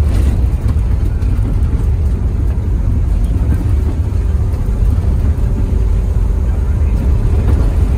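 Off-road vehicle driving on a rough dirt road, heard from inside the cabin: a loud, steady low rumble of engine and tyres.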